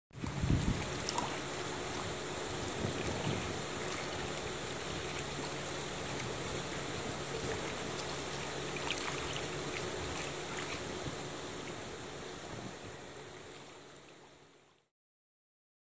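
Harbor ambience of small waves lapping around moored boats, with light wind and a steady high hiss, fading out near the end.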